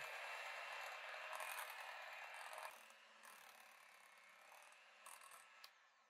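Electric hand mixer running steadily, its beaters churning through crumbly farmers cheese in a ceramic bowl; quieter from about three seconds in, fading out near the end.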